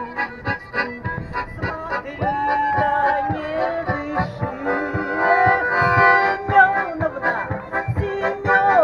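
A song sung with instrumental accompaniment, with long held and gliding sung notes over a steady beat.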